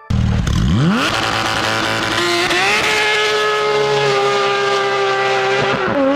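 High-performance sports car engine accelerating hard: revs climb steeply, then hold high, with a brief drop near the end as it shifts gear.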